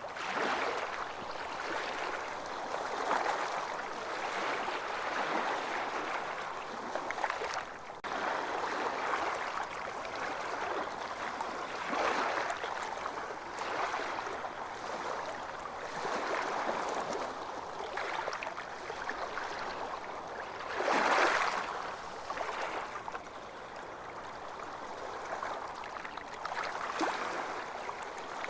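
Ocean waves washing onto a beach, a continuous surf wash that swells and recedes every few seconds, with one larger wave breaking about two-thirds of the way through.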